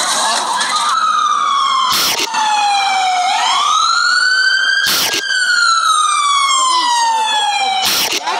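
A siren wailing, its pitch sliding down for a couple of seconds, rising again and then falling slowly, with a sharp click about every three seconds. Noisy crowd-like sound fades out in the first second.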